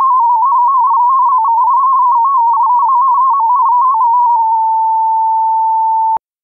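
MFSK31 digital data signal centred around 1000 Hz: a single tone hopping rapidly between nearby pitches. About four and a half seconds in it settles into one steady tone, which cuts off abruptly with a click near the end.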